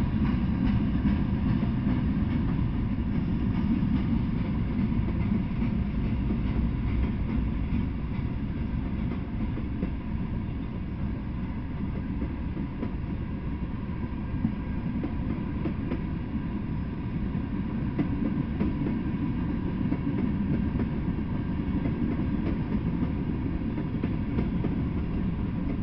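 Freight train of tank cars and covered hopper cars rolling past: a steady low rumble of steel wheels on the rails, with faint clicks throughout.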